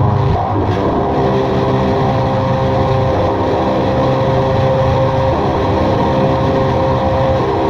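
Experimental drone music: a dense layer of steady low held tones, with a clearer, higher held tone coming in about a second in.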